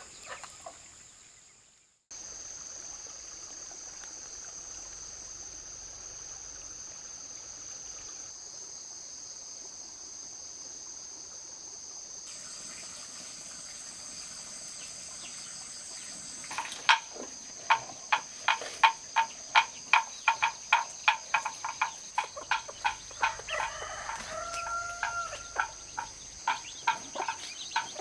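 Steady high-pitched drone of insects. Then, about halfway through, a loud run of short sharp chick peeps, about two a second, with a short held call from the hen among them.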